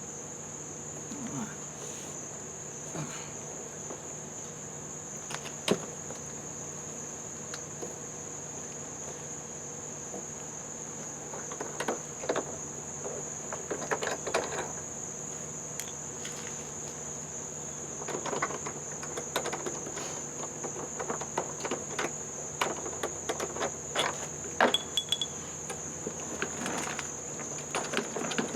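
Crickets chirping in a steady high-pitched drone, with scattered clicks and knocks of handling throughout, busiest in the second half.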